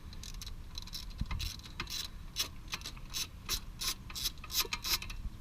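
3/8-inch drive ratchet with a 12 mm socket clicking in a run of quick, uneven strokes as it backs out an exhaust mounting bolt under a scooter engine.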